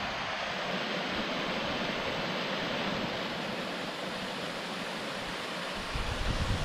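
Small fellside waterfall on a beck, water rushing steadily over rocks. A low rumble of wind on the microphone comes in near the end.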